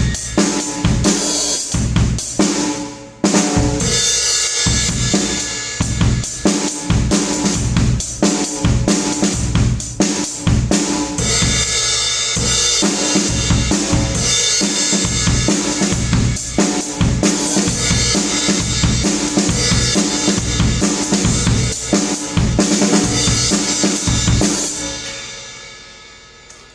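Music driven by a drum kit: bass drum, snare and cymbals in a steady beat over pitched accompaniment, breaking off briefly about three seconds in. Near the end it stops and the sound dies away.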